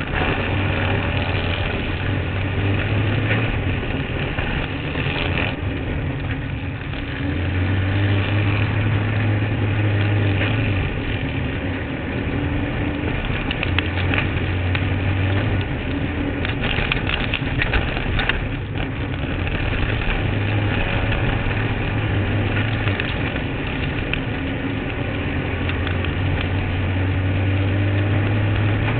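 Kart cross racing engine running hard, heard from onboard the kart, its note swelling and easing every few seconds with the throttle. A burst of sharp rattling comes about two thirds of the way through.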